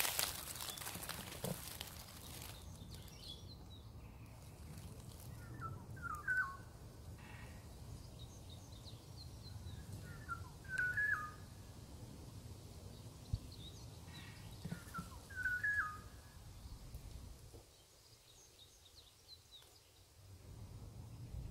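A songbird singing short whistled phrases with stepped, falling notes, three times about every four to five seconds, with fainter high chirps between them. Dry leaves crackle underfoot in the first couple of seconds.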